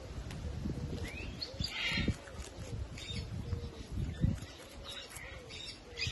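Birds chirping: scattered short chirps and a rising whistle about a second in, over low rustling and soft knocks.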